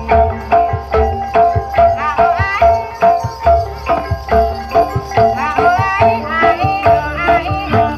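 Javanese gamelan music for an ebeg horse dance: hand drums beat a quick rhythm under ringing metal keyed instruments, with a bending melodic line above.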